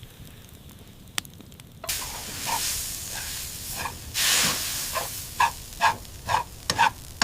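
Frying sizzle and hiss of pancake batter cooking over a campfire. It starts about two seconds in and swells around four seconds, followed by a quick run of short, high-pitched blips near the end.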